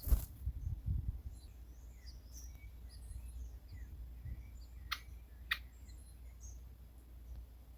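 Faint, scattered short bird chirps over outdoor background noise. A thump of handling noise with low rumble at the start, and two sharp clicks about half a second apart a little past the middle.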